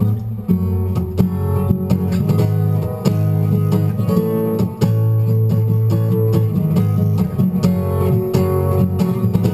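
Background music: acoustic guitar picked and strummed.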